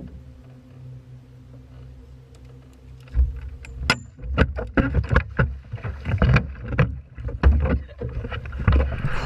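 A boat with a steady low motor hum, then from about three seconds in a rapid, irregular run of loud knocks and thuds against the boat.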